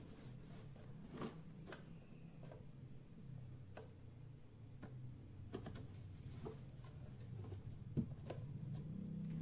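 Scattered light clicks and taps of plastic as a thin PVC piece is handled and pressed into a cut-out in a PVC pipe, the sharpest about a second in and at about eight seconds, over a low steady hum.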